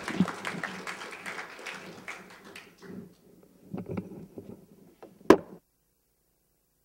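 Audience applause fading out over the first two to three seconds. A few scattered knocks follow, then a single sharp, loud click a little after five seconds, after which the sound cuts out completely.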